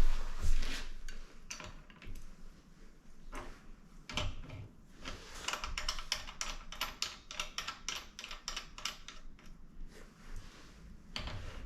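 Hand tools working on a bicycle crank during crank removal: irregular runs of sharp metallic clicks and taps, densest in the middle of the stretch.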